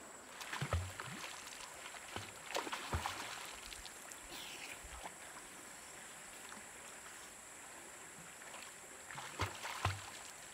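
Water splashing from a person swimming in a river: short bursts of splashing from strokes and kicks about a second in, around three seconds in, and again near the end.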